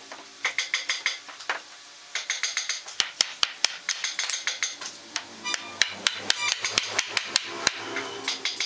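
Hammer knocking the top rail of a wooden door frame down onto its tenons: runs of quick, sharp wood-and-metal strikes, coming faster and closer together in the second half.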